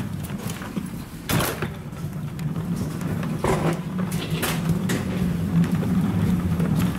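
Steady low machine hum in an enclosed jet bridge, with light footsteps on its carpeted floor and two brief louder rustling knocks, one about a second in and one halfway through.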